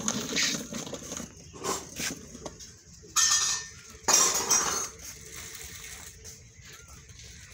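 Plastic baby walker rattling and clattering as it rolls over a concrete floor, with two louder bursts of clatter about three and four seconds in.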